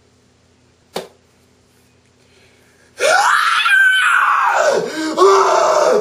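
A young man screaming loudly in comic pain from burning himself with a hot clothes iron pressed to the shirt he is wearing, the pitch wavering; the scream starts about three seconds in. A single sharp click comes about a second in.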